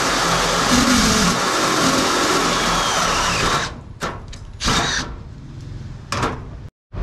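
Cordless drill driving a step drill bit through 1.2 mm metal plate, the bit cutting the hole out to its 20 mm step. The drilling stops about halfway through, followed by a few short separate noises.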